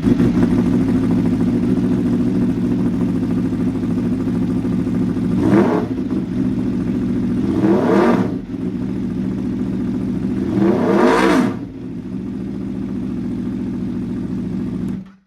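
A 2023 Aprilia Tuono V4 1100 RR's V4 engine, breathing through a Leo Vince full exhaust, idles just after start-up. The throttle is blipped three times, each rev rising and falling quickly, the third the longest. The engine settles back to idle and is switched off near the end.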